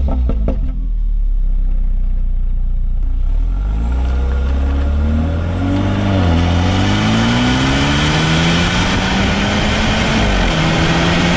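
BMW 428i's turbocharged 2-litre four-cylinder engine accelerating under load. Its note climbs, falls briefly about six seconds in and again about ten seconds in as it shifts up, with rushing road and wind noise building as speed rises.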